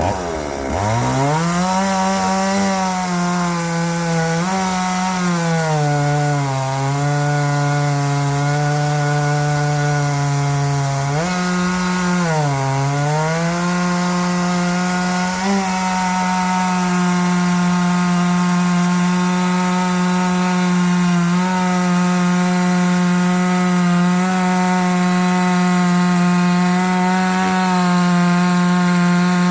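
Two-stroke chainsaw cutting through wood, its engine pitch dropping as the chain bites into the cut and recovering a few times, then holding steady through a long cut.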